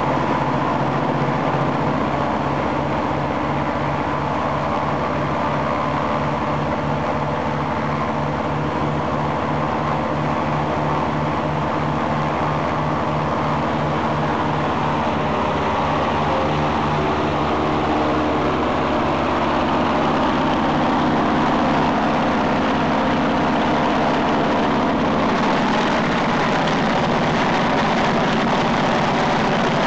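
Ilyushin Il-14's Shvetsov ASh-82T radial piston engine running steadily on the ground, turning its propeller, with an even pulsing exhaust beat. About 25 seconds in a rushing hiss joins it and the sound gets a little louder.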